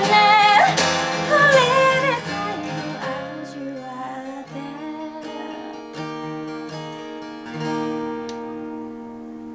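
A woman singing to a strummed acoustic guitar; her last sung line ends about two seconds in, and the guitar then plays chords alone. A last chord strummed near the end rings and fades as the song closes.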